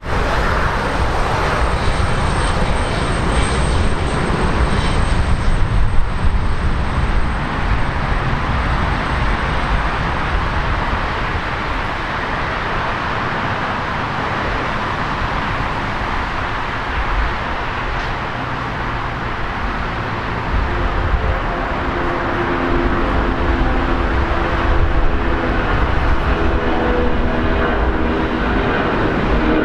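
Airbus A340-300's four CFM56 turbofan engines at take-off power: a steady, loud jet roar. A faint high whine fades out about seven seconds in, and low droning tones join in over the last several seconds.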